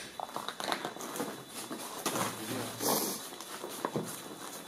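Footsteps shuffling through a floor strewn with loose paper, giving irregular rustles and crunches, busiest about two to three seconds in.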